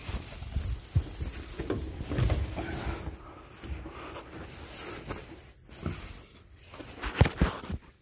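Handling and movement noise: scuffs, rustles and scattered knocks as a person moves about holding the phone, with a sharp knock about seven seconds in.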